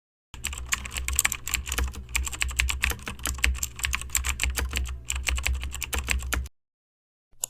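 Rapid, irregular clicking of typing on a keyboard over a steady low hum, cutting off suddenly about six seconds in.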